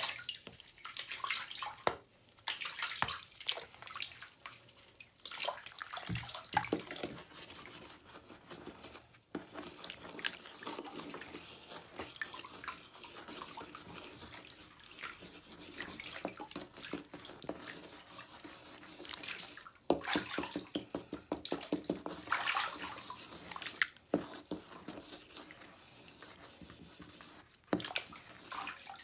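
Wet fingers squishing and rubbing the soft, crumbling remains of a bath bomb in foamy bathwater, with irregular splashes, drips and crackles. A spell of rapid crackling comes a little after the middle.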